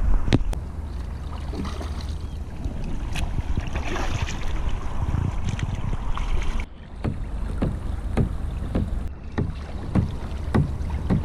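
Kayak paddle strokes splashing into the water in a steady rhythm, with wind rumbling on the microphone.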